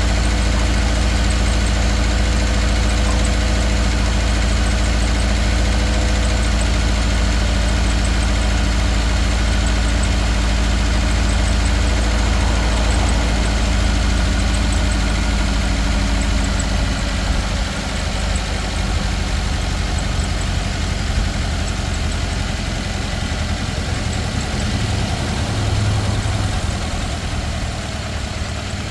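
Subaru Outback 2.5-litre flat-four engine idling steadily with a cylinder 3 misfire. A little over halfway through, the low rumble eases and gets slightly quieter.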